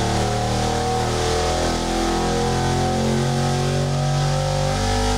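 Carbureted GM LQ9 6.0-litre V8 running under load on an engine dynamometer, with its ignition timing set to 26 degrees.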